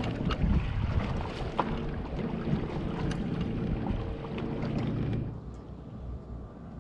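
Motorboat engine running close by, with wind on the microphone; the sound drops off sharply about five seconds in.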